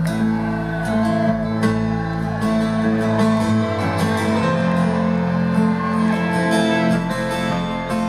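Live folk-rock band playing an instrumental passage: strummed acoustic guitar and a picked banjo over low bass notes that change every few seconds.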